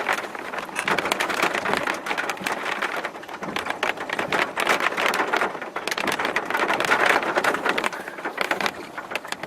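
Light rain falling, heard as a dense, irregular run of small drop ticks.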